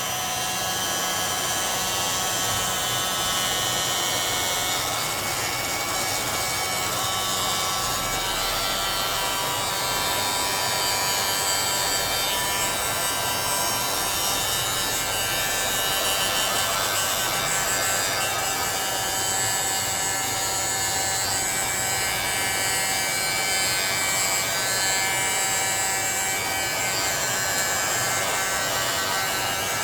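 Handheld heat gun running steadily, an even motor hum with fan noise, used over freshly poured epoxy resin to pop surface bubbles.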